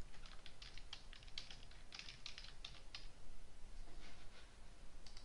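Computer keyboard typing: a quick run of faint keystrokes over the first three seconds, thinning to a few scattered taps after.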